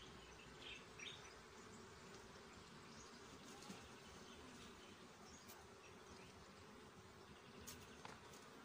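Faint steady hum of honeybees flying over an open hive that has been worked without smoke, the colony roused and defensive. A few light clicks can be heard over the hum.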